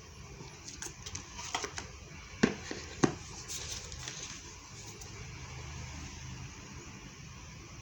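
Handling sounds while unboxing a smartphone: a few light clicks, then two sharp knocks about half a second apart, followed by a brief rustle of packaging.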